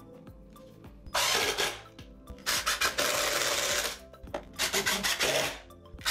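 Cordless drill/driver driving screws from inside a drawer box into a wooden drawer front. It comes in three short bursts of about half a second to a second and a half, and a fourth starts near the end.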